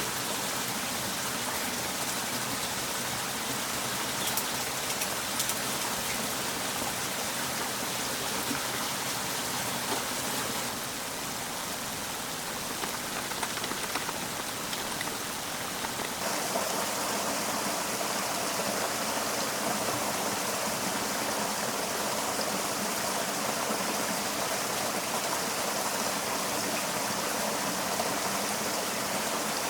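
Steady rushing of running water, an even hiss that shifts in tone slightly about eleven and sixteen seconds in.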